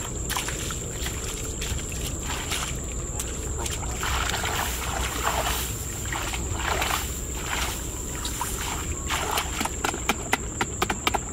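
Muddy water sloshing and splashing as a hoe and then bare hands churn through a shallow flooded pit, in irregular strokes with a run of short, sharp splashes near the end.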